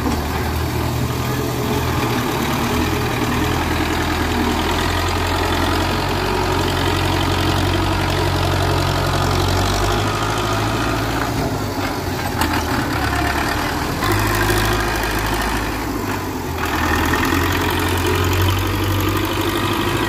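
Belarus tractor's diesel engine running under a front loader, with the engine speed dropping and picking up again a few times.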